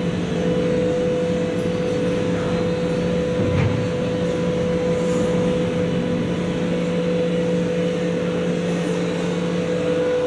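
Diesel locomotive running, with a steady engine drone and a constant hum.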